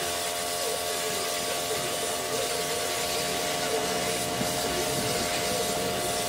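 Pressure washer running steadily, its pump giving a constant machine whine while the water jet hisses against a plastic headlight lens, rinsing off soapy foam.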